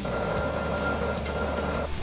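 Background music, overlaid by a steady rushing noise with a thin high whistle that cuts off shortly before the end.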